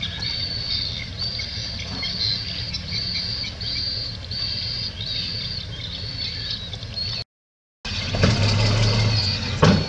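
Heavy diesel earthmoving machinery running with a steady low rumble, under a high thin note that repeats about once a second. About seven seconds in the sound cuts out for half a second, then the engine comes back louder.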